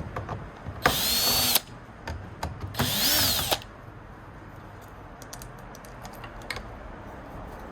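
Cordless electric screwdriver running in two short bursts, its motor whine rising as it spins up, the second burst rising then falling in pitch: backing out a small Torx screw. A few light clicks of parts and tool follow.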